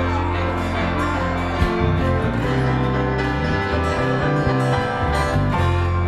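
A band playing an instrumental passage led by guitar, with no singing.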